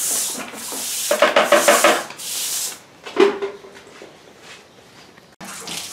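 Stiff push broom scrubbing a wet color wash across stamped concrete, the bristles scraping in strokes for the first few seconds before dying away. There is a brief squeak about three seconds in.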